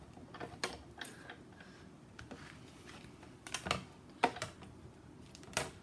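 Light, irregular clicks and knocks of plastic cutting plates and an embossing folder being handled at a Big Shot die-cutting and embossing machine, about half a dozen in all.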